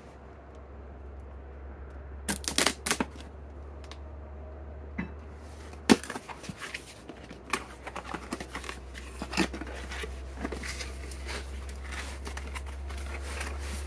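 Cardboard product box being opened by hand: a quick run of sharp clicks and rips about two seconds in, one sharp snap near six seconds, then scattered crinkling and rustling of cardboard and packaging. A steady low hum sits underneath.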